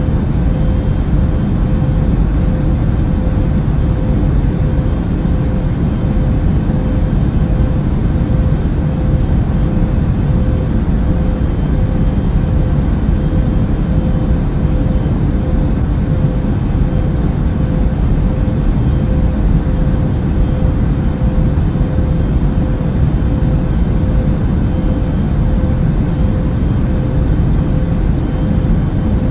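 Airbus A380 cabin noise in cruise flight: a steady low rumble and rush of engine and airflow noise with a constant faint hum, unchanging throughout.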